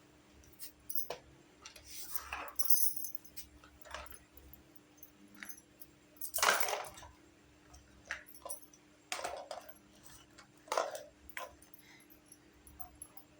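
Small plastic pieces of a toy mini kitchen set being handled and set down: irregular clicks, taps and light clatters, the loudest about six and a half seconds in.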